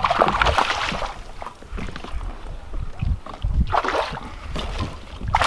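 Gusty wind and water noise on a phone microphone aboard a small fishing boat, coming in uneven bursts, with low rumbling knocks from the phone being handled.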